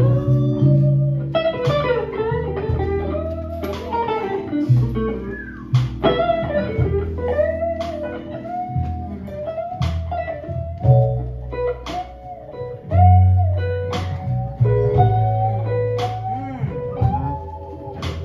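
Live blues band: a hollow-body electric guitar plays a lead solo full of bent notes, over held keyboard chords, a bass line and a steady drum beat.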